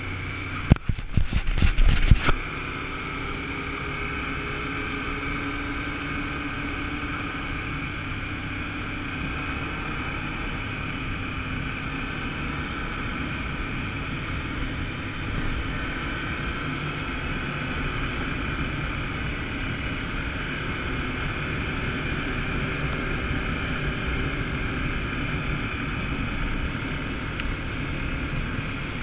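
ATV engine running steadily under way, heard from the rider's seat, with wind noise on the microphone. A short run of sharp knocks comes about a second in.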